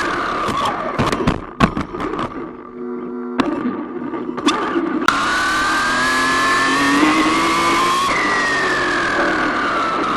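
RC car's motor whining, rising in pitch as it speeds up and falling away near the end, with clicks and knocks in the first half.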